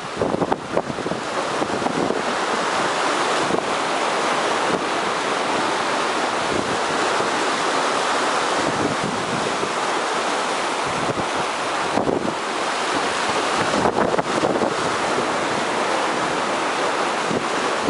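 Heavy typhoon-swell surf breaking, a steady rush of waves, with wind buffeting the microphone and a few stronger gusts in the second half.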